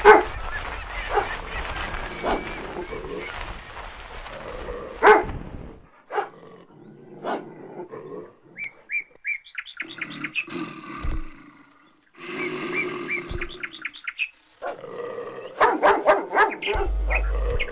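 Dogs fighting, snarling and growling as they grapple, with short yelping calls in the middle and a rapid run of barks near the end.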